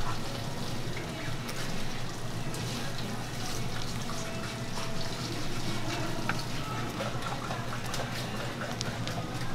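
Steady shop-kitchen background noise: a constant low hum with scattered small clicks and clatter.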